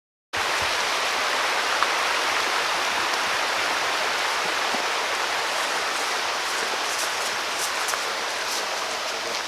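Meat sizzling steadily on a grill over a campfire, an even hiss that cuts in suddenly just after the start.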